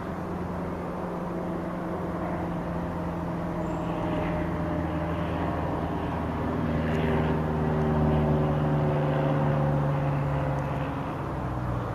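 A distant engine hum, steady in pitch, growing a little louder around eight seconds in and easing off near the end.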